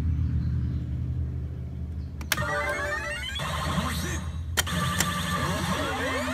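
Pachislot machine sound effects from its speakers: a steady low rumbling drone, then a sharp hit about two seconds in followed by rising, glittering sweeps, a second hit about four and a half seconds in, and more rising sweeps near the end. It is the machine's build-up effect leading into its '女神センター' (Goddess Center) reveal.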